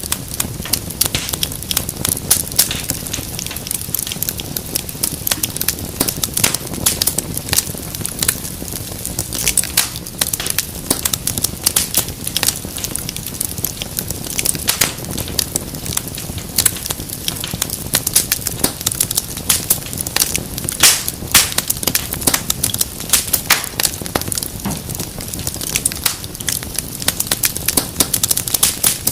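Wood fire in a fireplace crackling steadily, with frequent irregular sharp pops and snaps over a low rumble of the flames.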